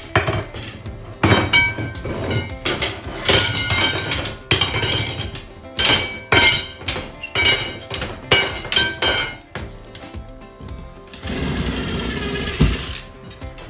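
Repeated sharp knocks and clinks from window-grille parts being handled and knocked together during a repair, over soft acoustic background music. Near the end comes a steady scraping noise lasting about a second and a half.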